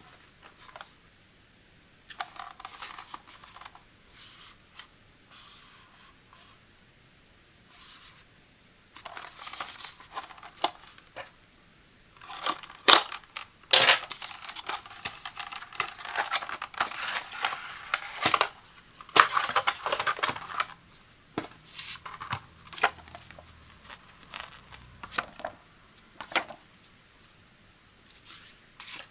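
Hands opening a small white paperboard box: cardboard sliding, scraping and rustling in irregular bursts, with tearing-like sounds and two sharp snaps about thirteen seconds in, the busiest stretch in the middle. Then quieter handling of a coiled charging cable and a paper instruction leaflet.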